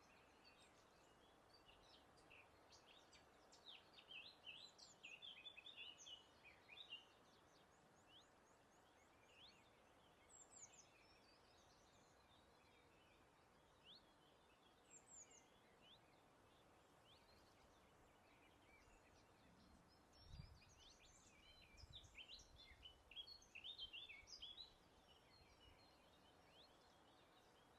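Faint songbirds singing in quick high chirps and short trills, in two busier spells about four seconds in and again about twenty seconds in, with single notes between, over a steady soft hiss of breeze. A couple of brief low thumps come near the second spell.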